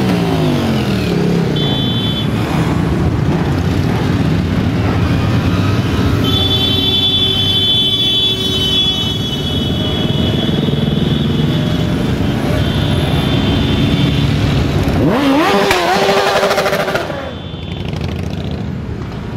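A stream of motorcycles riding past one after another, engines running and revving, the pitch dropping as each bike goes by. A high thin tone sounds on and off, and the traffic noise eases off near the end.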